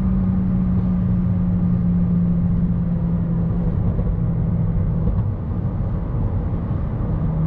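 Inside the cabin of a single-turbo BMW 335i with the N54 straight-six: a steady engine drone over road noise while cruising, its pitch easing slowly lower, with a brief drop about five seconds in.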